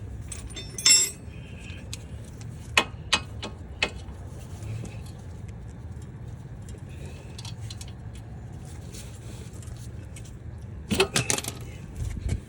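Metal hand tools clinking and tapping against metal while suspension bolts are worked loose: a sharp clink about a second in, a few more around three to four seconds in, and a quick cluster near the end, over a steady low hum.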